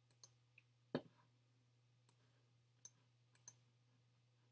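Scattered sharp clicks at a computer, about eight over four seconds and some in quick pairs, from clicking through the controls to change the slide. A faint steady low hum runs beneath them.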